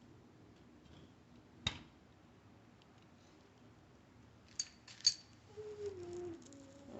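A few isolated clicks of a tool and parts being handled while a fender screw is lined up: one sharp click about two seconds in and a couple of lighter ones around five seconds, followed by a faint tone falling in pitch.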